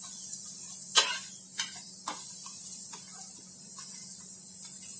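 Metal spatula clicking and scraping against a nonstick tawa as an oiled paratha is pressed and pushed around to crisp it: a few sharp taps, the loudest about a second in, over a faint steady sizzle.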